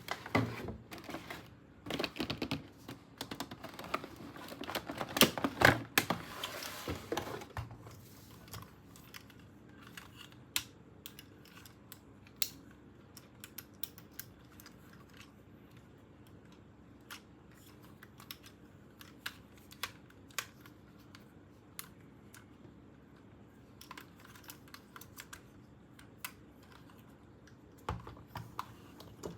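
Small plastic toy pieces being handled: a busy run of clicks, taps and rustling for the first several seconds, then scattered single clicks.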